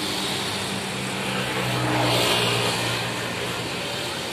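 An engine hum that swells louder about halfway through and then eases off again.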